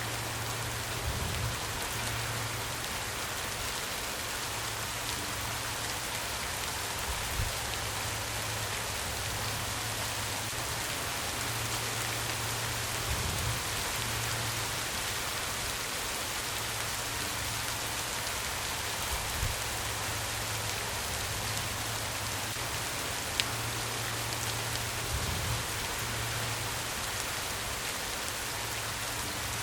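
Steady rain falling, an even hiss of drops with a few louder single drops standing out, the sharpest about two-thirds of the way in.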